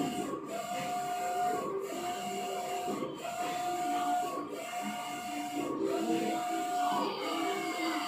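Large-format tarpaulin printer's print-head carriage sweeping back and forth while printing: a steady whine on each pass, broken by a short pause at every reversal, about once every 1.3 seconds.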